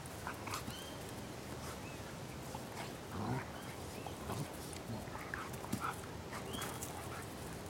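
A White Shepherd and an Australian Kelpie pup play-fighting, making short, scattered dog noises. The loudest comes about three seconds in.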